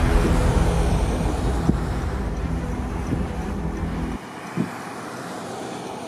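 A vehicle engine running close by, loud and low with a steady hum in it. About four seconds in it cuts off abruptly, leaving a quieter steady hiss with a couple of faint knocks.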